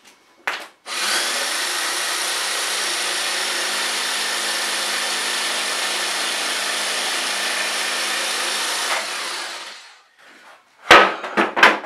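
Jigsaw with a coarse wood-cutting blade cutting half-inch cement board: a short blip, then about nine seconds of steady sawing that winds down near the end. A few loud, sharp knocks follow about a second later.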